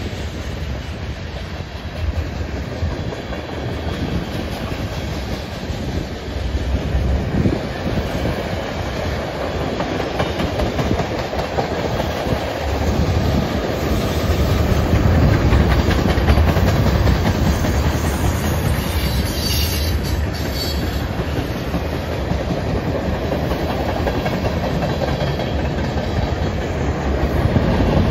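Freight cars rolling past: a steady rumble of steel wheels on rail with the clickety-clack of wheels over rail joints, growing gradually louder.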